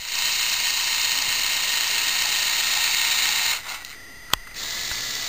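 Lego Technic motors running plastic gear trains with a steady whirring grind that stops after about three and a half seconds. A single sharp click follows about a second later, then a quieter steady hum near the end.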